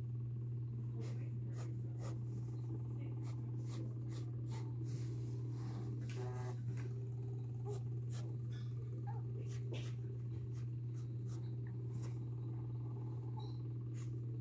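Graphite pencil scratching on drawing paper in short, irregular sketching strokes, over a steady low hum.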